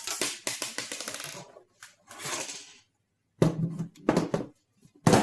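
A loose metal screw rattling and clinking inside a small desktop PC case as the case is tipped and handled to get it out, with knocks from the case being moved.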